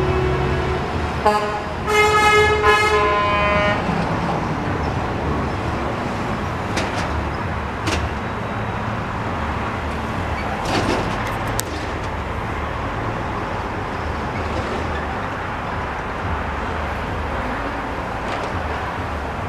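Tow truck horns honking: a held blast cuts off about a second in, then a quick run of short toots follows for a couple of seconds. After that the trucks' engines and traffic go on at a steady level.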